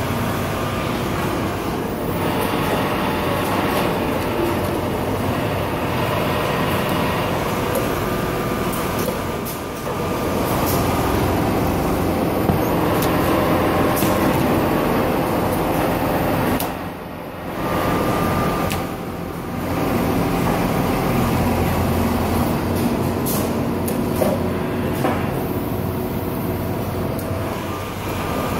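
Richpeace CNC automatic pattern sewing machine running as it stitches a collar held in a clear template, in a steady mechanical din with a few sharp clicks.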